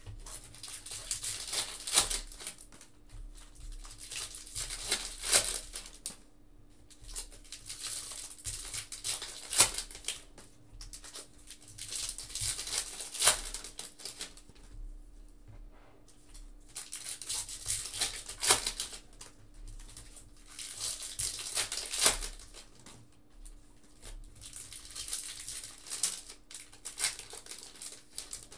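Foil trading-card pack wrappers crinkling and tearing as packs are ripped open by hand, in repeated bursts with short pauses, and cards slid and shuffled in between.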